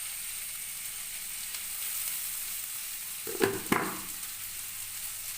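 Chopped onion and green chilli sizzling steadily in hot oil in a pan, with two sharp knocks about three and a half seconds in as the pan is stirred.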